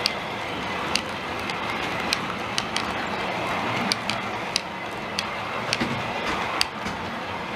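OO gauge model freight wagons rolling past on the track: a steady rumble of small metal wheels on rail, broken by irregular sharp clicks as the wheels cross rail joints.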